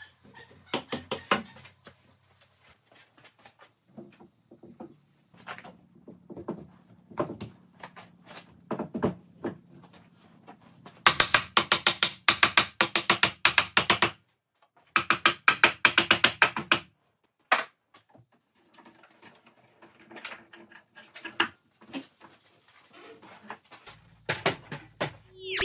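Wooden mallet knocking oak bench parts together at their joints: scattered knocks and wood-on-wood clunks, with two runs of rapid blows, about five a second, in the middle.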